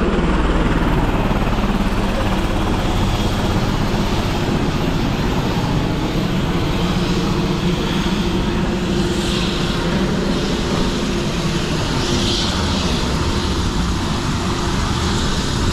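Helicopter running on the pad: a loud, steady engine and rotor drone with a constant low hum.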